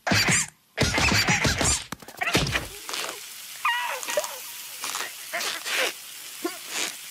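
A large stone slab crashing flat onto the ground: a loud thud, then a crumbling rattle of rock and debris for a second or two. Quieter knocks follow, with a short squeaky, wavering cry about four seconds in.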